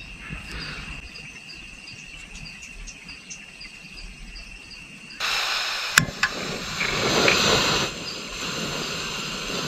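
Crickets chirping steadily. About five seconds in, a loud hiss starts abruptly, with a sharp click about a second later.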